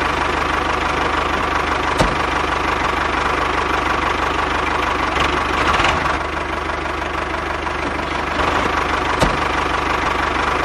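Engine running at a steady idle, with a sharp click about two seconds in and another near the end.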